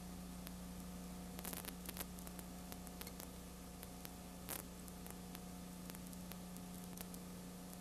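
Steady static hiss and a low electrical hum from an old videotape transfer, with a short burst of crackles about a second and a half in and another crackle about four and a half seconds in.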